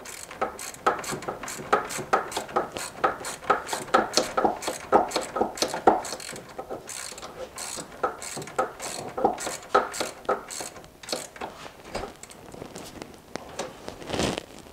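Hand ratchet wrench clicking in quick runs, several clicks a second, as a 10 mm bolt is tightened.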